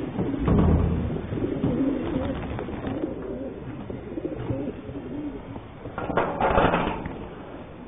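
Many racing pigeons cooing together in the crates of a transport truck, with a louder rush of noise about six seconds in.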